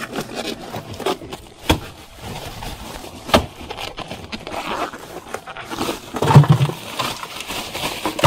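Knocks and scraping in a boat's fibreglass fish box as a fish is handled, then a plastic bag of ice rustling and ice cubes pouring and clattering onto the fish near the end.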